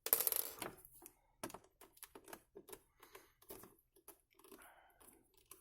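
Screws being worked out of a plastic power strip housing with a screwdriver: a short scrape at the start, then a run of small irregular clicks and ticks.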